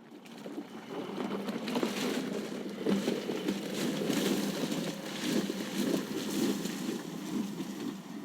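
Porsche 911 Dakar driving over loose gravel or dirt: a steady engine note under dense crackling tyre and stone noise. It builds about half a second in, stays loud and eases off near the end.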